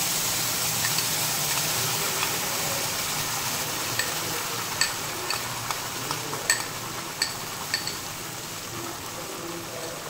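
Onion-tomato paste sizzling as it goes into hot oil in a kadhai. The sizzle is loud at first and slowly dies down, with a few light clicks around the middle.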